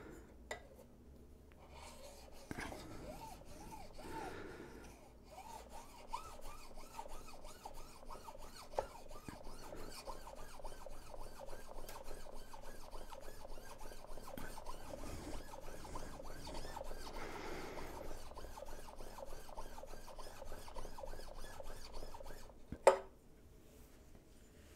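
Steel plane blade rubbed back and forth on a Shapton glass whetstone, a steady rasping scrape of rapid strokes as the leading edge of the blade's back is polished flat. It stops near the end with a single sharp knock.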